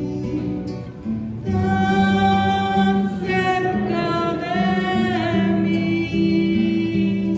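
A hymn sung to acoustic guitar accompaniment, a voice holding long notes that waver with vibrato; at this point of the Mass it is the communion hymn. A short lull about a second in before the singing resumes.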